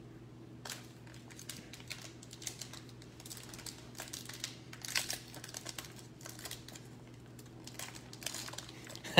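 Shiny wrapper of a baseball card pack crinkling and tearing as hands open it: irregular crackles, loudest about halfway through, over a faint steady low hum.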